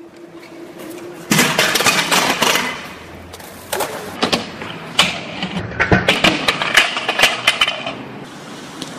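Stunt scooter rolling over skatepark concrete and a ramp: a rough wheel noise with several sharp clacks and knocks of the deck and wheels hitting down.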